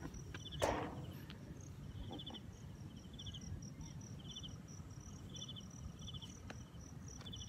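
Crickets chirping in short high trills that repeat about once a second, over a steadier, faster, higher-pitched pulsing, with a low rumble underneath. There is a brief rustle just under a second in.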